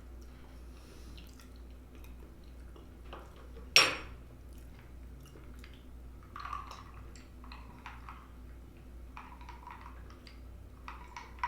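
Someone eating a plate of fried chicken and sides: scattered small clicks and soft chewing and mouth sounds. About four seconds in comes one sharp clink of cutlery against a dish, the loudest sound.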